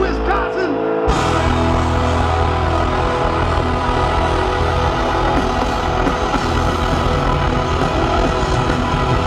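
Live rock band playing loud through a concert PA, with electric guitar. The full band crashes in suddenly about a second in.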